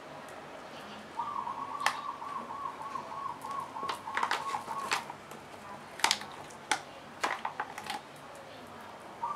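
Irregular sharp clicks and taps from a brush working resin into fiberglass cloth and knocking against a plastic resin cup. From about a second in until about halfway, a bird calls in the background with a fast run of repeated high notes, about three or four a second.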